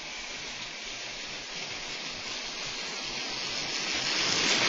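Steady rain falling during a thunderstorm, a even hiss that grows louder toward the end.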